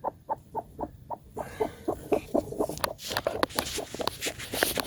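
Broody hen clucking in short, low notes, about four or five a second, with rustling in the second half.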